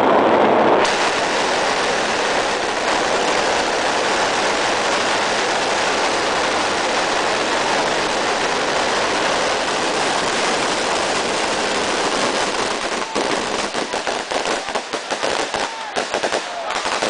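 Dense, rapid crackling bangs, thinning out to scattered separate pops about thirteen seconds in.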